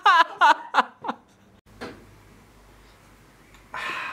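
A burst of rapid, high-pitched giggling, several quick falling-pitch laughs that stop about a second in, then quiet room tone with a short breathy hiss near the end.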